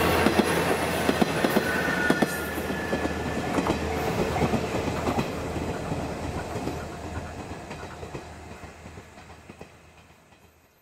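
Two-car diesel railcar train (JR KiHa 110-series) pulling away: a steady low engine drone with the clickety-clack of wheels over rail joints, fading steadily as it recedes into the distance.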